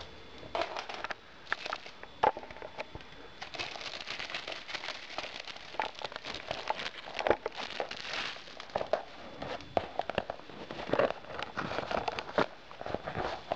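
Thin clear plastic packaging bag crinkling and crackling as hands handle it and pull it open, in irregular bursts with scattered sharp clicks.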